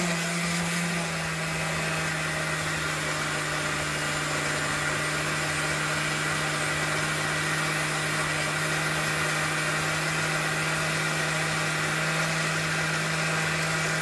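Electric countertop blender running steadily, its motor humming at an even pitch as it beats eggs, sugar and margarine into a cake batter.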